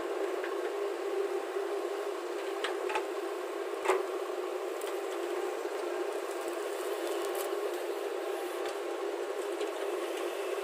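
Heavy-machinery engine running steadily, with a few short knocks, the loudest just under four seconds in.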